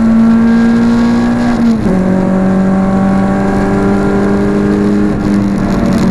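Renault Clio 172's four-cylinder engine heard from inside the cabin, pulling hard under acceleration with its pitch climbing, dropping suddenly with an upshift about two seconds in, then climbing again.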